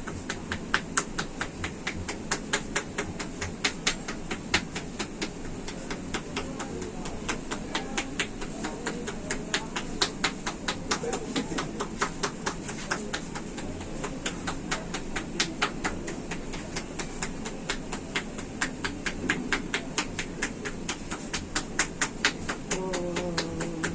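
A barber's hands doing tapping massage (kōdahō) on a client's head: rapid, even percussive slaps, several a second, kept up without a break.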